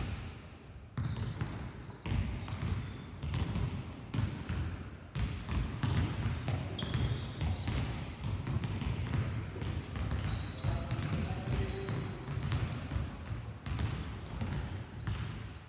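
Several basketballs bouncing on a sports hall floor as players dribble, giving many overlapping, irregular thuds, with short high squeaks from sneakers on the floor.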